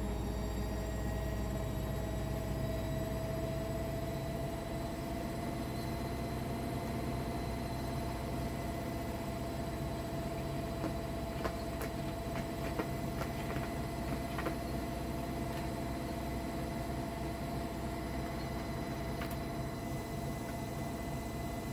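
Steady machine hum with one clear whining tone and a low rumble beneath it, with a few faint clicks about halfway through.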